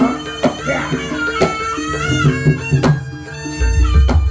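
Traditional East Javanese barongan and jaranan music: a reedy shawm melody that bends in pitch, over sharp hand-drum strokes and repeated metallophone tones. A deep, low gong-like boom comes in about three and a half seconds in.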